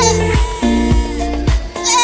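Music with a steady beat and bass line. A goat's quavering bleat ends just as it opens, and another bleat starts near the end.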